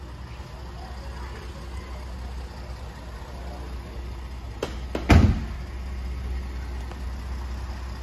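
Ford F-150 pickup door being shut about five seconds in: a short click, then a heavy thud, over a steady low hum.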